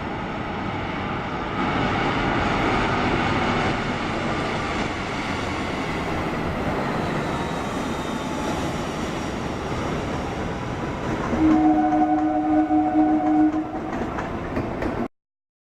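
A loud, steady rushing noise from a large passing vehicle. Near the end a horn sounds one held chord for about two seconds, then all sound cuts off abruptly.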